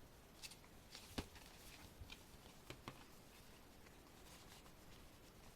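Faint rustling of paper and card with a handful of light clicks and taps from handling the album's contents, mostly in the first three seconds, then near silence.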